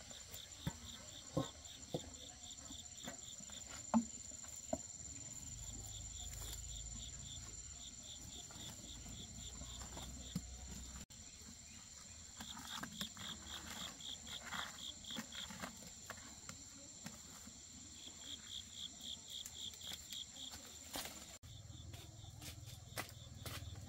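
Night insects, likely crickets, chirping: a steady high-pitched trill with repeated runs of fast pulsed chirps over it. A few light knocks in the first four seconds, from the pot lid and cooking utensils being handled.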